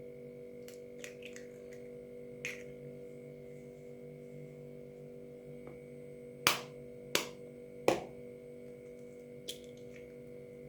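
Eggs being cracked against the rim of a bowl: a few light taps, then three sharp louder cracks about two-thirds of a second apart, over a steady low hum.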